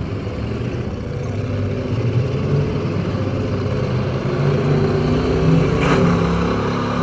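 Demolition derby car's engine running, heard from inside the car, rising in pitch and loudness through the middle as it is revved, with other derby cars' engines behind it. A brief sharp noise about six seconds in.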